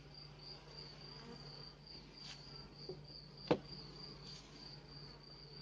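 A cricket chirping in an even, high-pitched pulsed trill several times a second, over a faint low hum from the opened honey bee hive. There is a single sharp knock about three and a half seconds in as the wooden hive box is handled.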